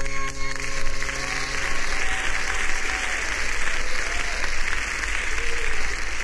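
A concert audience applauding as the last held electronic synthesizer chord of the song dies away in the first second or two.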